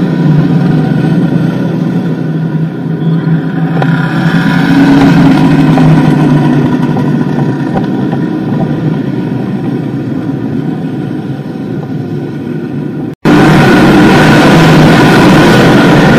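Small block modified dirt track race cars' V8 engines at racing speed going through a turn, loud throughout. After a split-second gap about thirteen seconds in, several cars pass together and the sound gets louder and fuller.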